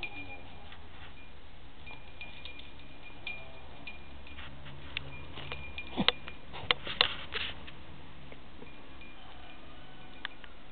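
Small jingle bell on a puppy's collar ringing in short, scattered jingles as the dog moves about, with a few louder sharp knocks about six to seven and a half seconds in.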